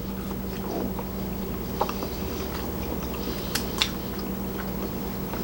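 A person chewing a mouthful of food, with a few short sharp clicks about two seconds in and again near four seconds, over a steady low hum.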